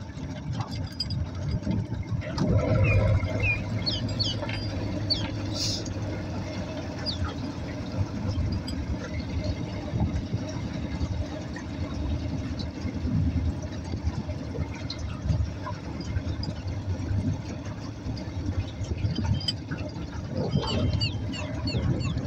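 Boat's outboard motor running steadily with the jon boat under way, over the rush of wind and water. A few short high chirps come through about three seconds in and again near the end.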